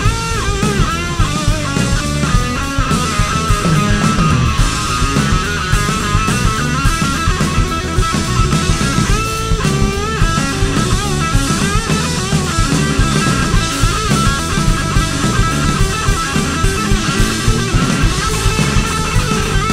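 Live blues-rock electric guitar solo on a gold-top Les Paul, the lead line full of bent notes, over a band with drums.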